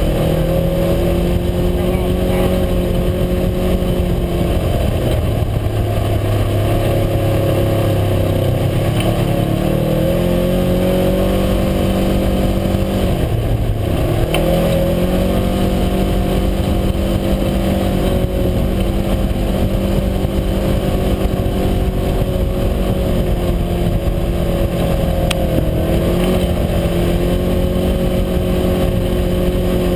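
UTV engine running while under way, its pitch easing down about a quarter of the way in, climbing back, dipping sharply once near the middle as the throttle is let off, then holding steady.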